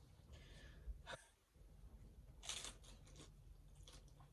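Faint rustling and a few light clicks of food and containers being handled on a table while tacos are assembled, with one louder short rustle about two and a half seconds in.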